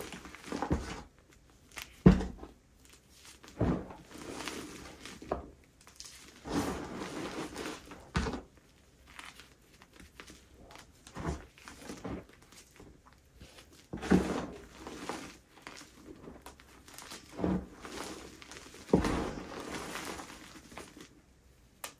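Baked, dyed gym chalk being crushed: a series of crunches, each a sharp crack followed by about a second of flaky crumbling, coming every one to three seconds with short pauses between.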